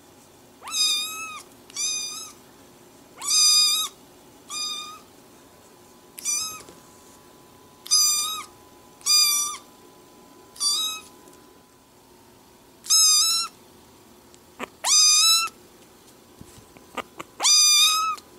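Small kitten meowing over and over, about a dozen short, high-pitched meows coming roughly once a second.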